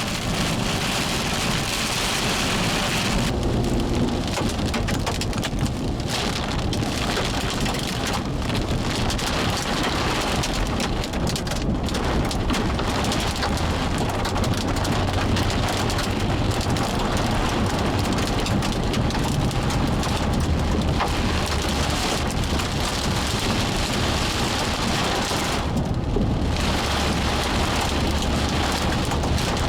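Heavy thunderstorm rain pouring down steadily, with a continuous low rumble underneath.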